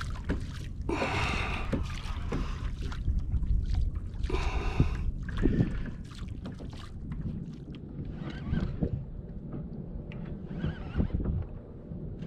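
Wind buffeting the microphone and water slapping against a plastic fishing kayak's hull. Two short hissing rushes come about one second and four and a half seconds in.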